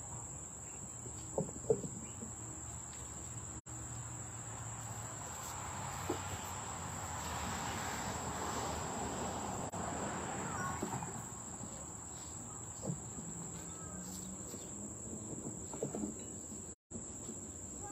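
Steady high insect drone from the surroundings. A soft rushing noise swells and fades over several seconds in the middle, and a few light knocks come in the first two seconds.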